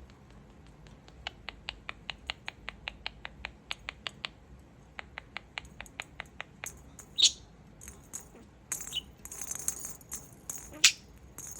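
Pet budgie (parakeet) making a fast, even run of sharp clicks, about five a second, for several seconds. It then breaks into short chirps, a scratchy high chatter and a loud squawk near the end.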